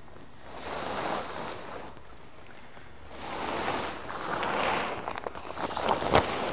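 Large carport tarp being pulled by rope over a metal arch frame, sliding with two long swishing swells, then crackling and flapping as the fabric moves near the end.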